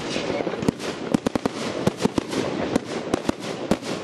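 Fireworks display: about a dozen sharp bangs from bursting shells at irregular intervals, over a continuous haze of noise.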